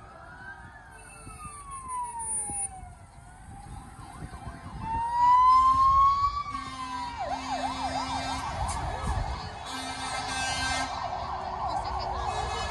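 Sirens of fire engines approaching in convoy, getting louder: slow wailing sirens rising and falling in pitch, joined about seven seconds in by a fast warbling siren. Short steady blasts of a low horn sound several times over them.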